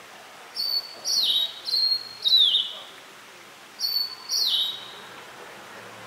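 Steere's liocichla singing: three clear whistled phrases, each a short level high note followed by a longer note that slides downward, the loudest near the middle.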